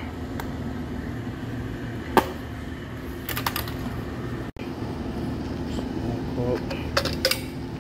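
A steady low hum under scattered hand-tool handling sounds: one sharp click about two seconds in, then short clusters of clicks and taps around the middle and near the end.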